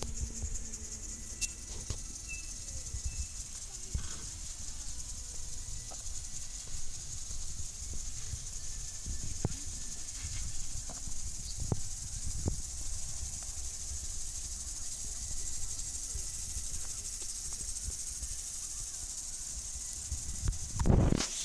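Steady hiss of lawn sprinklers spraying water over grass and flower beds, over a low uneven rumble. A brief louder rush comes near the end.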